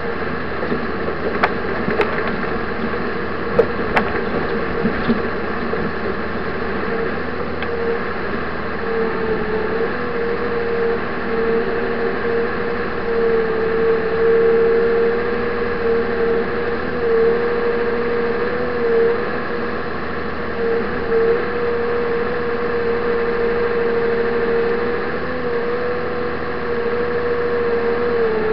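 Land Track tracked vehicle's engine and drive running steadily while it ploughs through deep snow, heard from inside the cab. A steady whine sits over the engine noise, and a few sharp clicks come in the first few seconds.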